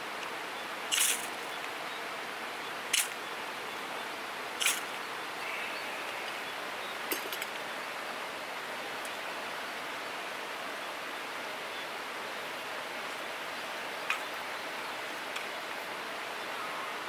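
Three quick scrapes of a knife down a ferrocerium rod, about two seconds apart and the first the longest, throwing sparks into twine tinder to light a campfire; a few small clicks follow later. Under it runs the steady rush of a river.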